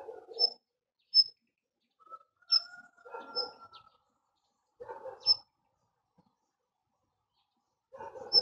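A bird calling: short, high chirps every one to three seconds, each with a brief burst of lower, rougher chatter just before or around it.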